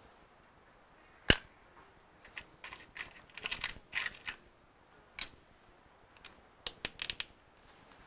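Screwdriver bit working the screws of a Dell XPS 15 laptop's metal bottom cover: one sharp click about a second in, then irregular runs of short clicks and scrapes.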